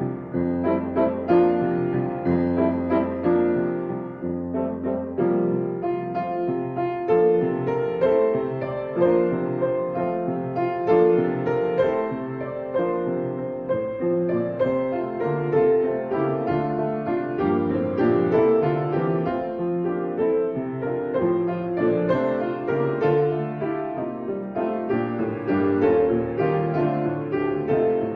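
Piano music: an instrumental piece played continuously, with many quick notes.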